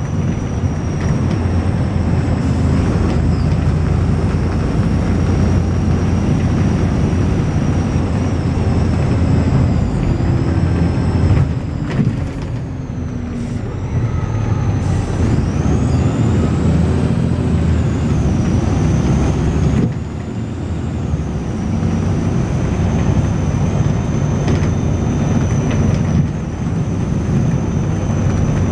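Volvo B6LE single-deck bus running under way, its engine rumbling loudly, with a strange thin high-pitched whine that holds steady, dips twice and then rises partway through. The engine note drops briefly a few times.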